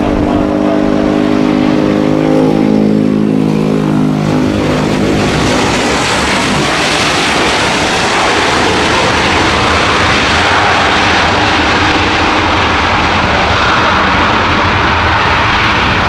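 Boeing 737-900ER's jet engines whining at low power with steady tones through the touchdown. From about five seconds in, a broad, loud roar builds and holds as the airliner rolls out down the runway.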